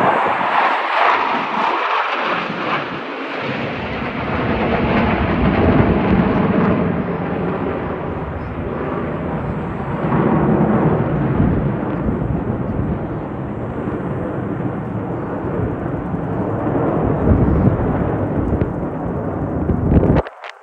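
Aircraft engine roar as a plane flies past, a loud continuous rumble that swells and eases several times. It cuts off abruptly near the end.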